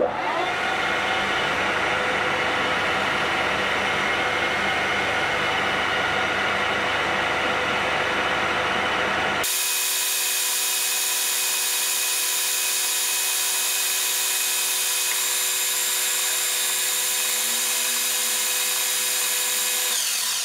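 Metal lathe starting up and running steadily with several steady tones while taking a final light turning cut on a workpiece; about halfway through the sound changes abruptly, losing its lower rumble and becoming higher and thinner, and near the end the lathe stops.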